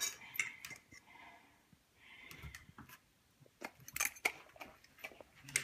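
An Australian cattle dog and a pit bull eating rice: scattered wet smacks and clicks of chewing and licking, thickest a little past the middle.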